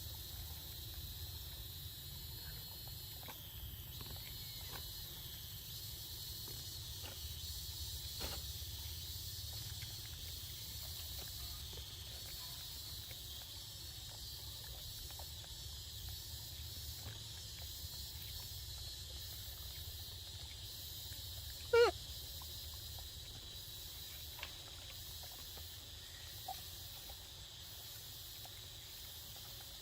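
Outdoor ambience: a steady high hiss and a low rumble, with faint clicks now and then and one short, loud pitched squeak about two-thirds of the way through.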